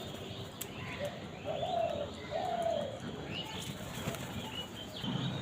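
Birds calling: two clear arched calls, each about half a second, come one after the other about a second and a half in, over many short high chirps from other birds.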